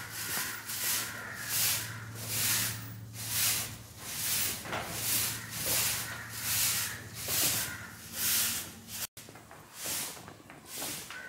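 Long twig broom sweeping a brick floor in regular strokes, about one a second, each a short scratchy swish. A low steady hum runs underneath.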